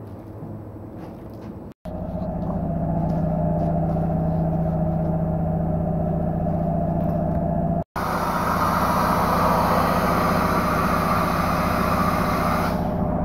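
A steady mechanical hum with a low tone. Then, after a cut, air hissing steadily from an air hose fed into a tractor tyre on its rim, stopping near the end.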